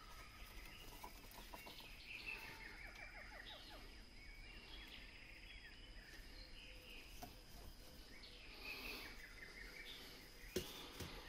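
Faint birds chirping, with quick runs of short falling chirps, over a thin steady high-pitched whine; a single sharp click near the end.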